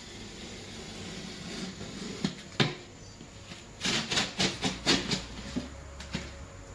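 Utility knife scoring along a curved line in thin 6 mm bendable gypsum board, a low scraping rasp, with two sharp clicks a little after two seconds in. About four seconds in comes a quick run of cracks and rasps as the cut piece is snapped and pulled free of the sheet.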